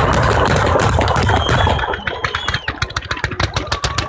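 Italian Bolognese-style fireworks battery firing a rapid barrage of bangs and crackles. It is almost continuous at first, then from about two seconds in it breaks into quick separate reports, several a second.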